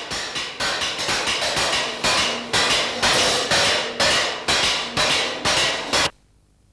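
Hand-hammering of bronze cymbal blanks on anvils: several hammers strike in an uneven, overlapping rhythm of a few blows a second, each blow ringing bright and metallic. The hammering stops abruptly about six seconds in.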